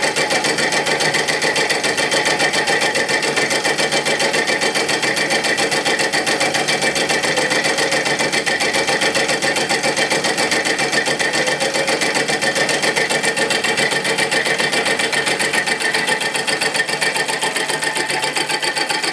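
Homemade solenoid engine running: a truck PTO idle solenoid pulls its plunger on each stroke, switched by a microswitch off the crank, and turns a heavy flywheel. The result is a rapid, even, steady mechanical clatter as the engine is left to get up to speed.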